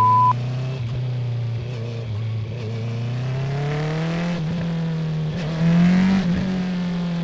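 Honda CB650R inline-four with an Akrapovic full titanium exhaust, pulling under way with its note climbing steadily. It dips briefly about four and a half seconds in, rises to its loudest around six seconds, then eases off.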